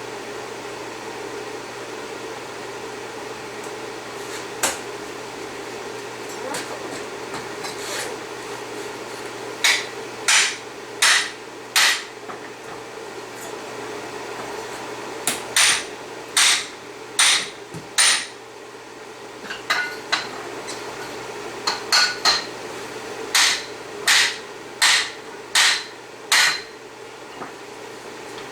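Hammer striking steel, sharp ringing blows in irregular groups of a few at a time with pauses between.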